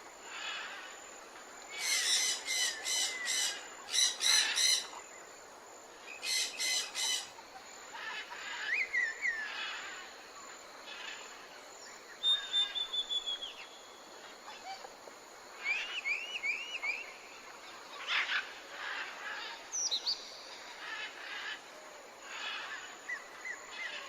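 Wild birds chirping and calling, with several kinds of calls: short whistled chirps and slurred notes, and loud runs of rapid repeated notes about two seconds in and again about six seconds in.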